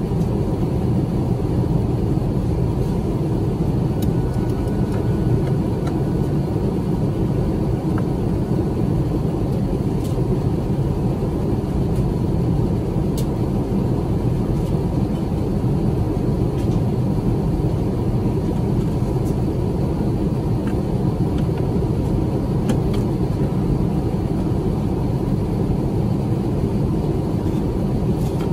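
Steady, low cabin noise inside an Airbus A350-900 climbing out after takeoff: the rumble of its Rolls-Royce Trent XWB engines and the airflow, unchanging throughout, with a faint steady hum and a few faint ticks.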